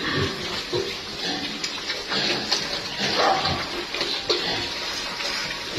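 Pigs grunting in short low grunts about once a second, over a steady wet, splashing noise.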